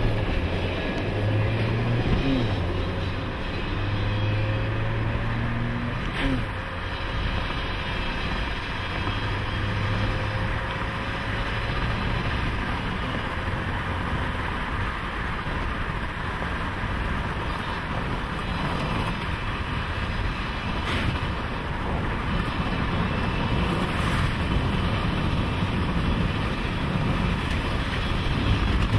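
A car driving, heard from inside the cabin: steady engine, tyre and wind noise, with a low engine hum in the first ten seconds or so.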